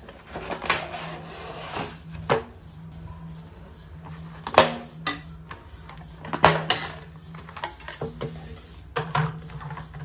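Cardboard box and packaging of a toy RC car being handled: rustling and scraping, with about five sharp knocks and clicks as the plastic car and remote are worked free of the cardboard insert.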